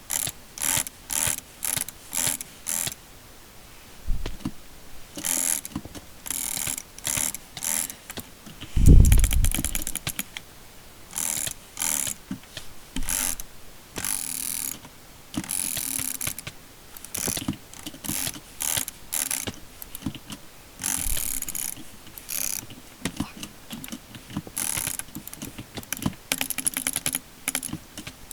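Roccat Kain gaming mouse buttons clicking, in rapid bursts of sharp clicks with short gaps between them. A louder dull thump comes about nine seconds in.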